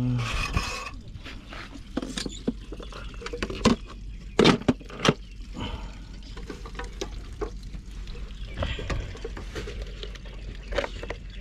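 Small electric pressure cooker being handled and set up: scattered clicks and knocks of its plastic and metal parts being moved and fitted, the loudest knocks about three and a half, four and a half and five seconds in.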